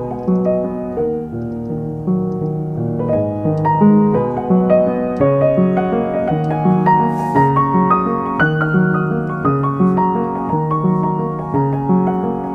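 Background piano music: a gentle melody of single notes moving up and down over a steady pattern of lower notes.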